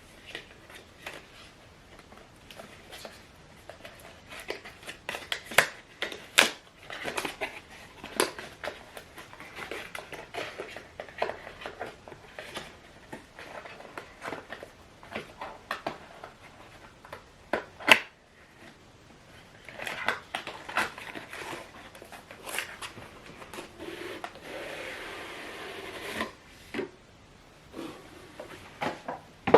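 Packaging being handled while an action camera is unboxed: cardboard and plastic rustling with scattered clicks and taps, one sharp click about two-thirds of the way through, and a longer stretch of steady rustling near the end.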